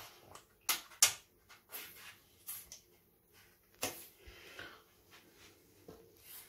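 Plastic squeeze bottle with a nozzle pressing tile grout into a joint: a series of short, irregular clicks and scrapes as the bottle is squeezed and the nozzle works along the tile edge, the loudest about a second in.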